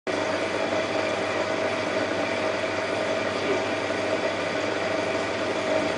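Reef Octopus needlewheel protein skimmer running: a steady pump hum with an even rushing of air and water.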